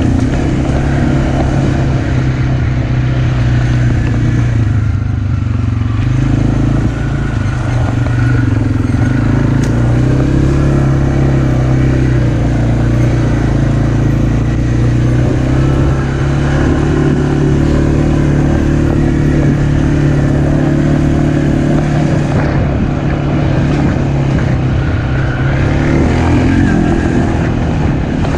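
Kymco MXU 450 ATV's single-cylinder engine running steadily, its pitch shifting a little now and then, while being run to warm the oil before an oil change.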